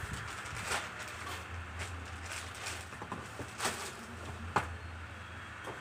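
Faint handling noise from fingers turning and rubbing a .999 fine silver coin: scattered soft ticks and rustles over a steady low hum.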